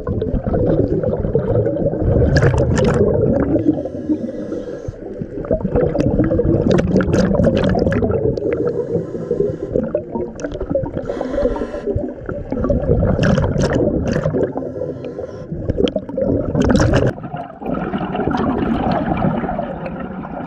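Scuba diver breathing through a regulator underwater: bursts of exhaled bubbles gurgling in surges every few seconds.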